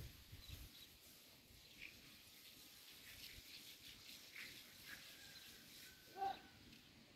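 Faint, scattered high chirps of distant birds over a quiet background, with one short, louder pitched call a little over six seconds in.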